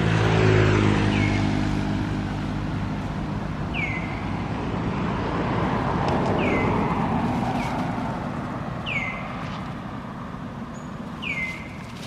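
A motor vehicle going past, its engine fading over the first few seconds, with a second swell of traffic noise about six to seven seconds in. A bird gives a short downward-sweeping call five times, about every two and a half seconds.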